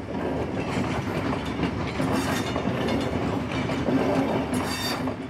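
A steady rumbling, clattering noise with a low hum under it, and sharper hissing rattles about two seconds in and again near the end.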